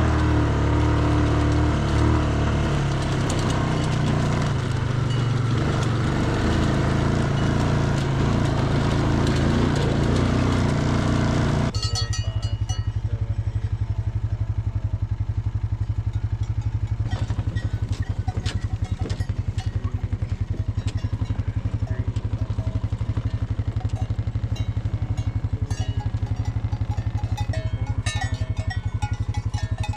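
A vehicle engine running under way with rough, full travel noise. About twelve seconds in it cuts abruptly to a steadier engine running with an even, fast pulse.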